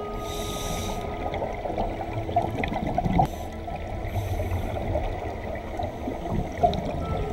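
Underwater sound of scuba divers' regulators: a steady muffled bubbling rumble of exhaled air. Two short hissing breaths come through a demand valve, one just after the start and one about four seconds in.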